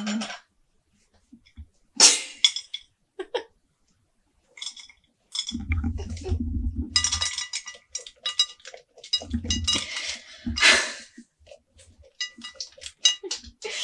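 Pumpkin seeds and pulp being pulled out of a pumpkin by hand and dropped into a ceramic bowl: irregular scraping and clinks against the bowl, with dull knocks of the pumpkin and bowl on the worktop and a few brief pauses.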